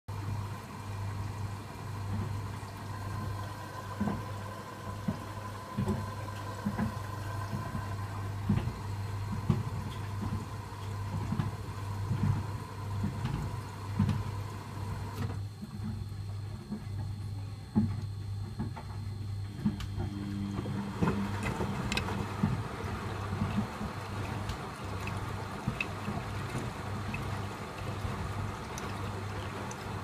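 Beko front-loading washing machine rinsing: the drum motor hums on and off as the drum turns, and wet laundry and water slosh and thud inside. About two-thirds of the way through the sound changes, with a new steady hum and more rushing water.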